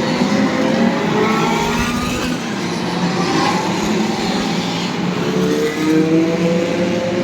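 Historic race car engines running hard and accelerating, their pitch rising at the start and again in the second half, with several engines heard at once.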